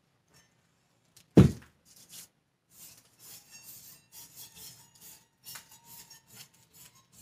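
A single loud thump about a second and a half in, as the metal wire soap cutter is worked, then a run of short rubbing, scraping strokes as the shea butter soap is slid about on the cutter and the plastic-covered table.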